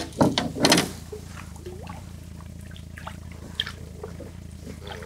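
Lake water splashing as a smallmouth bass is held in the water at the side of a boat, with several splashes in the first second, then softer drips and sloshing.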